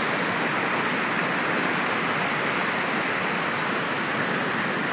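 Fast river rapids rushing, whitewater tumbling over rocks in a steady, unbroken rush of water.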